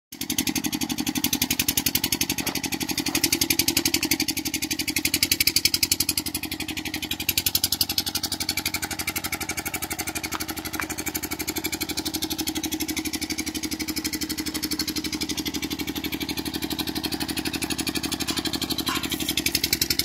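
A small engine running steadily at a fast, even beat throughout, with a few faint clicks on top.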